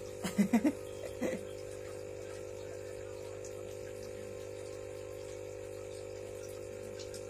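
A steady electrical-sounding hum, with a few short vocal sounds from a person in the first second and a half.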